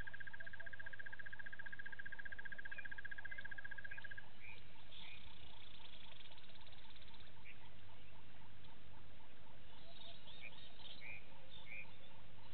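Natural wildlife ambience: a steady, rapid, high trill that stops about four seconds in, then a brief buzzier trill, over faint regular ticking and scattered short chirps.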